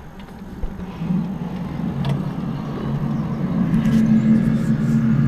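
Low, steady droning hum from outside, with a couple of held deep tones, swelling gradually louder: the unexplained 'strange noise' of the kind reported as mysterious sky sounds.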